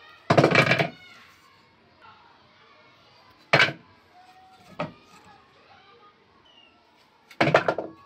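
Pine boards knocking and clattering against each other as they are handled: three short clatters, one near the start, one about three and a half seconds in and one near the end, with a smaller knock between.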